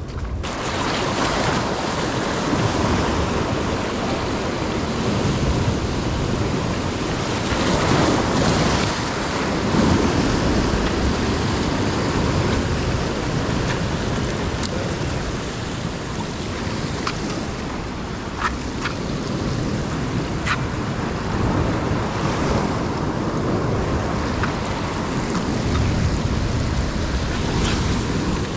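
Ocean surf breaking and washing over the rocks at a reef's edge: a steady rush of water that swells and eases every few seconds.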